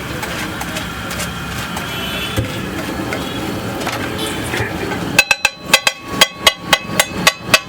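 Steady street-stall background noise, then about ten quick, ringing metal strikes at roughly four a second, typical of a steel spatula tapping and chopping on an iron griddle at an egg-fry stall.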